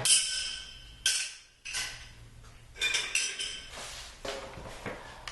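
Metal day-bed brackets and hardware clinking against each other as they are handled and set in place: several sharp, ringing metallic clinks.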